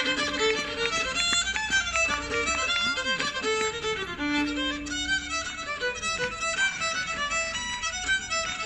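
Live folk dance tune led by a fiddle, playing continuously for morris dancing.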